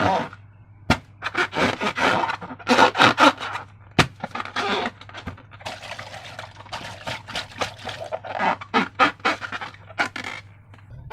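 Slime being squeezed and worked by hand, with irregular wet squelching and crackling and a few sharp clicks.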